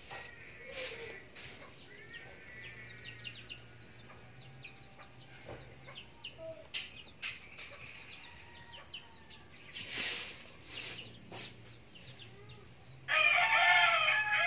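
Dry moringa leaves rustling and crackling as hands sift through them, then a rooster crowing loudly once near the end, for about two seconds.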